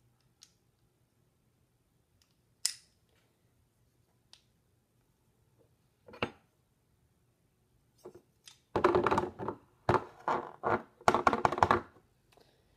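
Metal garlic press used to squeeze Play-Doh into strands: a few sharp clicks spread over several seconds, then near the end about three seconds of loud, repeated metallic scraping and rattling.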